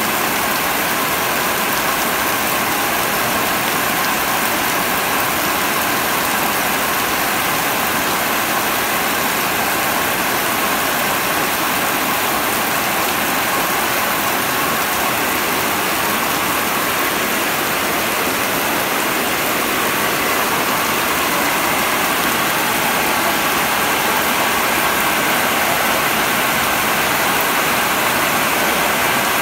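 Heavy rain pouring down, a dense, steady hiss.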